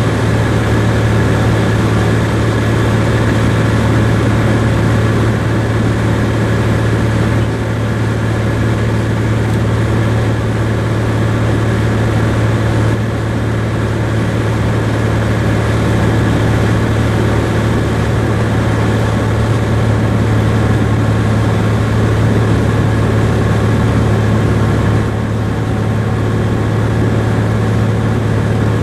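Cessna R172K Hawk XP's engine and propeller droning steadily in flight, with a strong low hum. The level drops slightly about seven seconds in and again near the end.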